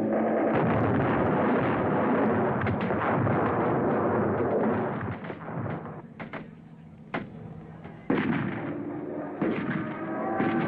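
Battlefield gunfire and explosions on an old war-newsreel soundtrack. A dense stretch of firing and blasts drops to a quieter gap broken by one sharp crack about seven seconds in. Sudden loud blasts follow about eight and nine and a half seconds in.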